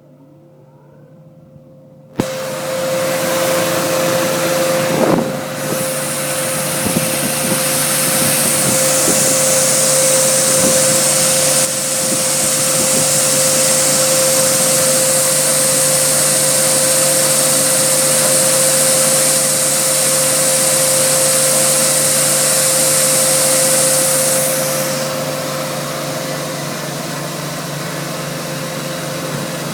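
Hess Einheit 1900 shoe repair finishing unit switched on about two seconds in, its motor and dust-extraction fan then running steadily with a hum and a loud hiss. The hiss grows stronger about five seconds in and eases back near the end while the machine keeps running.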